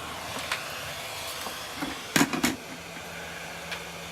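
Hot-air rework gun blowing steadily, with a few light clicks and two sharp clacks of hard objects a little over two seconds in.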